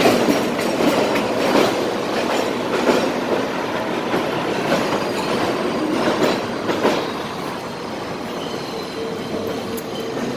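R32 subway train running on the steel elevated structure overhead, a continuous rumble with wheels clacking over rail joints about once a second, easing off somewhat in the second half. A faint steady wheel squeal sets in near the end.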